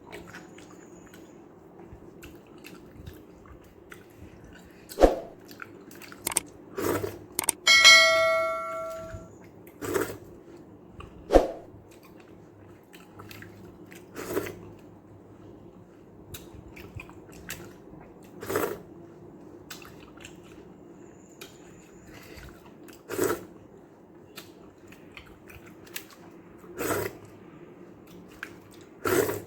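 Eating sounds: short chewing and mouth clicks every few seconds as rice and sambar are eaten. About eight seconds in, a single clear metallic ring follows a knock, like a metal dish being struck.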